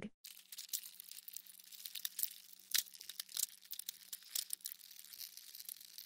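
Faint, irregular crackling and clicking, like light rustling, over a faint steady low hum.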